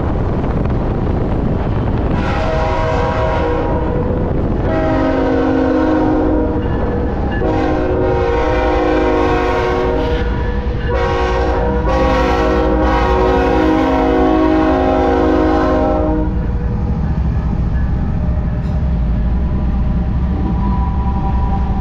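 A Ferromex freight locomotive's air horn sounds a multi-note chord in four blasts, the last held about five seconds, as the locomotive consist passes at speed. A low rumble of diesel engines and wheels on rail runs underneath.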